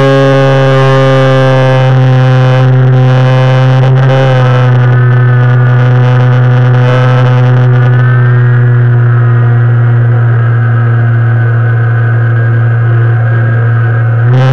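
Electric motor and propeller of an E-flite Air Tractor RC plane in flight, heard up close from the onboard camera as a loud, steady drone. The drone softens about eight seconds in and picks up again at the very end.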